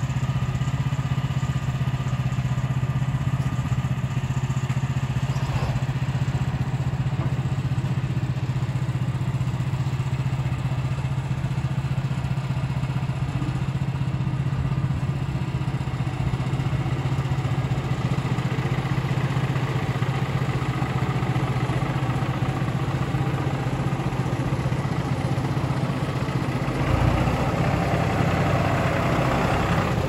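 Farm tractor engine idling steadily, with its sound swelling and growing rougher near the end.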